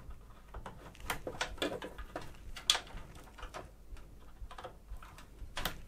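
PC power cables being handled and their plastic plugs pushed home into a motherboard's EPS CPU power headers: scattered small clicks and rustling of cable sleeving, with one sharper click a little before halfway.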